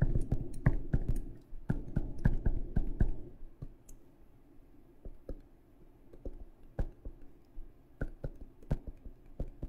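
Stylus clicking and tapping against a tablet surface while writing by hand. The clicks come irregularly, densely for the first three seconds or so and then scattered.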